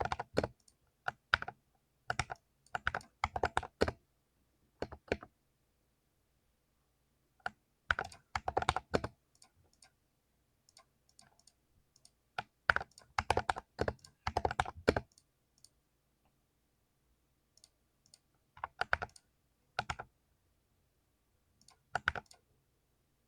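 Typing on a 60% mechanical keyboard: quick runs of keystrokes lasting one to three seconds, separated by pauses of a few seconds.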